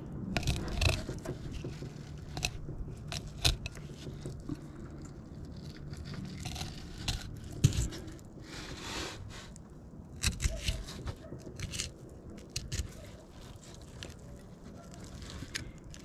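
Fillet knife scraping and crunching along a sauger's backbone as the fillet is worked off the bone, with scattered clicks and knocks of the blade and hands on a hard surface, over a low steady hum.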